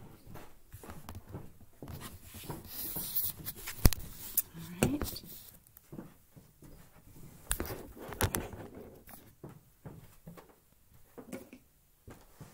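Handling noise as the camera is moved about and set in place: rustling and scraping with several sharp knocks and clicks, the loudest about four seconds in, settling down near the end.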